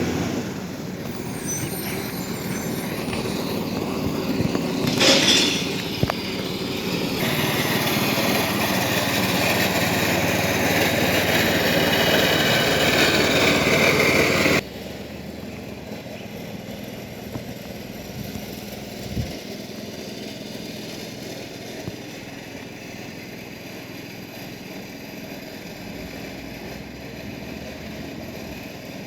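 Iveco ACCO side-loader garbage truck running, with a loud noisy burst about five seconds in. The sound drops suddenly about halfway through, leaving a quieter steady engine hum.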